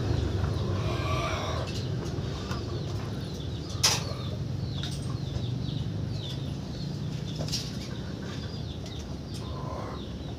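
Chickens clucking and small birds chirping over a steady low hum, with one sharp knock about four seconds in.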